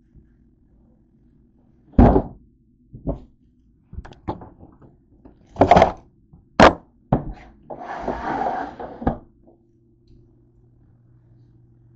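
Things being handled and rummaged through in a cabinet under a sink: a series of sharp knocks and thuds, then a rustling stretch of about a second and a half near the end, over a faint steady low hum.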